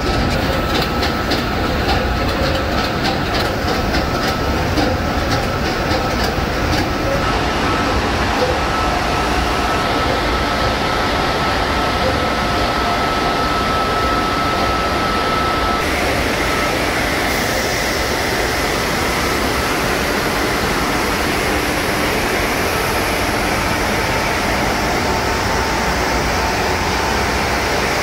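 Container ship's engine room at sea: the main diesel engine and surrounding machinery running in a loud, steady din. Light rapid ticking is heard for the first several seconds, along with a faint steady whine that fades out about halfway through.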